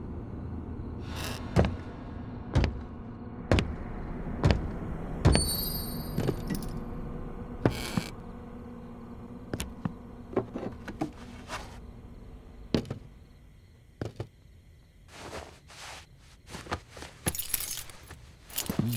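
A run of sharp knocks about once a second over a low steady hum, with a brief high ringing about six seconds in. The knocks then give way to scattered clicks, knocks and rattles as the hum fades away.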